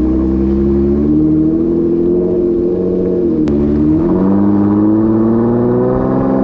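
Jeep Gladiator engine revving through its Borla ATAK exhaust with dual tips, held at raised revs with the pitch slowly climbing, dropping briefly about halfway through and then climbing again higher.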